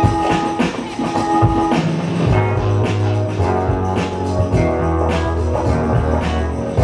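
Loud music played by the DJ for the dancers: a drum beat with deep, held bass notes that come in about two seconds in.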